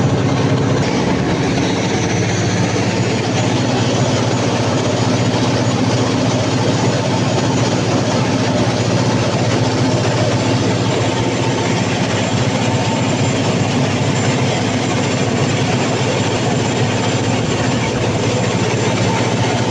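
Cummins KTA50 16-cylinder turbocharged diesel engine of a 750 kW generator set running steadily during a load test after a general overhaul.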